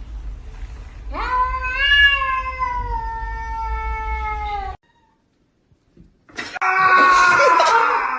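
Domestic cat caterwauling: a long drawn-out yowl starting about a second in, held for nearly four seconds and slowly falling in pitch, that cuts off abruptly. After a second or so of silence a second, louder and harsher yowl begins near the end.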